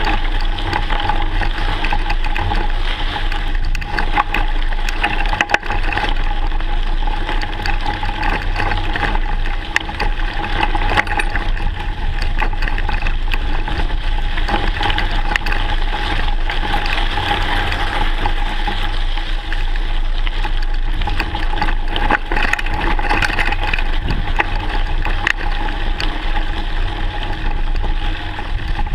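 Mountain bike rolling over a loose gravel trail, picked up by a camera mounted on the handlebars: a continuous rumble of tyres on stones with constant rattling clicks from the bike and mount.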